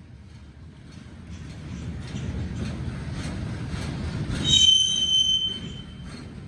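Freight train rolling past, its low rumble building over the first few seconds. About four and a half seconds in a high-pitched steel wheel squeal rings out for about a second and a half.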